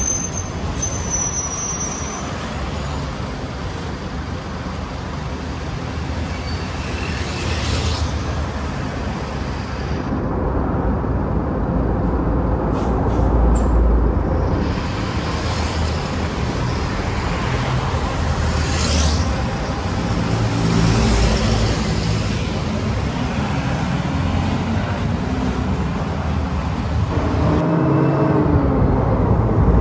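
City buses and cars driving past on a busy road: bus engines running and tyre noise that swell and fade as each vehicle goes by, loudest around halfway and near the end.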